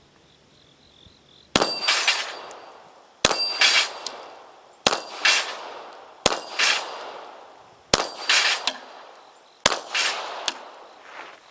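Six shots from a 9x18mm Bulgarian Makarov pistol, evenly paced about a second and a half apart. Each shot is followed a split second later by the ringing clang of a steel plate being hit.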